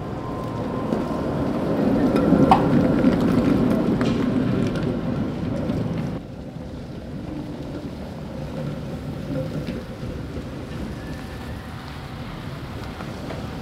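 Tatra T3 tram rolling past close by: a low rumble of wheels on rail and running gear that swells to its loudest about two seconds in, with a brief wheel squeal. About six seconds in it drops abruptly to a quieter, steadier rumble of a tram and street traffic further off.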